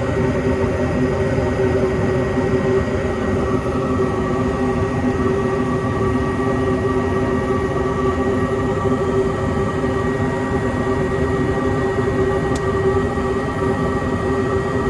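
Gas furnace running steadily: the inducer motor humming with several fixed tones over a low rushing noise, the burners lit, in the stage before the blower motor comes on. The furnace is working again after its failed transformer was replaced.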